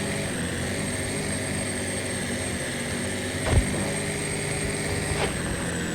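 Truck engine running steadily under way, with a thin high whine over the drone. One knock about three and a half seconds in.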